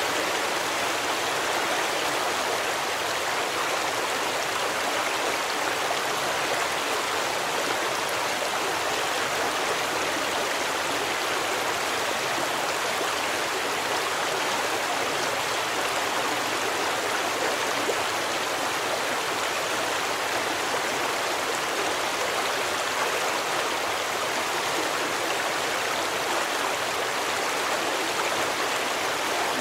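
Stream water running, a steady even rush that does not change.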